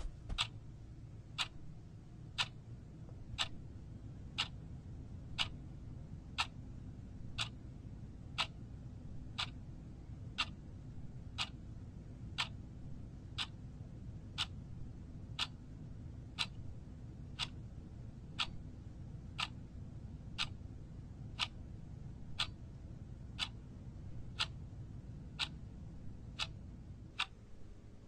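A clock ticking steadily and evenly over a low, steady hum.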